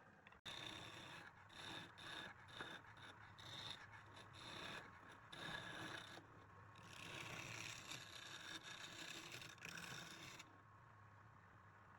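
Faint scraping of a turning tool against wood spinning on a lathe, in uneven strokes that come and go, dropping away briefly just after the start and going quieter near the end.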